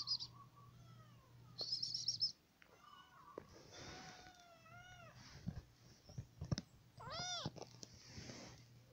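A young kitten mewing several times in short rising-and-falling mews, the loudest and longest about seven seconds in, with a few soft knocks between them. Quick high chirps from a bird sound near the start and about two seconds in.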